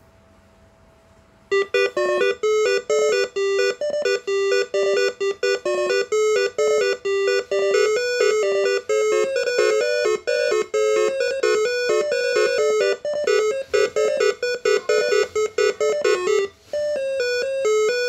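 Moreno MS9 air horn melody module playing a song tune as a fast run of short pitched notes stepping up and down, starting about a second and a half in.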